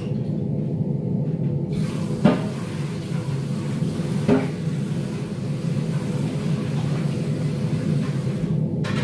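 Kitchen range hood exhaust fan running with a steady low hum. A soft hiss comes in about two seconds in, and there are two light knocks, about two and four seconds in.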